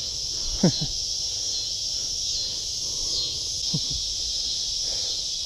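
Steady, high-pitched chorus of insects shrilling without a break. Two brief low falling swishes come about a second in and near four seconds.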